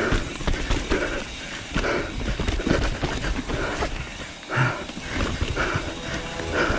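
Mountain bike rolling down a rough trail, with a constant rumble and rattle of clicks and knocks, and heavy breathing about once a second close to the chest-mounted microphone.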